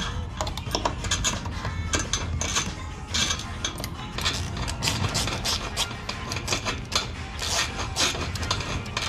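Hand ratchet clicking and metal tools and bracket clinking as a bracket is fastened under the car beside the transmission oil pan: irregular short clicks and clinks.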